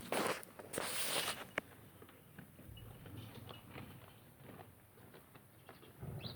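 Footsteps and rustling among goats: two loud scuffing rustles in the first second and a half, then scattered soft steps and clicks.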